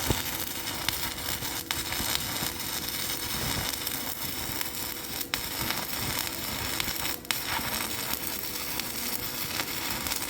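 Stick-welding arc crackling steadily as a 3.2 mm E7018 electrode burns, run at about 90 amps from a portable inverter welding machine.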